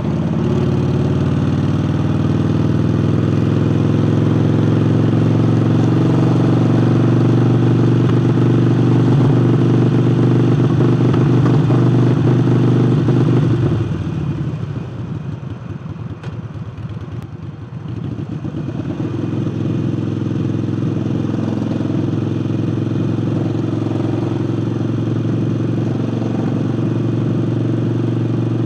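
Harley-Davidson Forty-Eight's V-twin fitted with a new air intake, running under way: it climbs at first and holds steady, then drops off about halfway through as the throttle is closed, and picks back up a few seconds later to run steadily again.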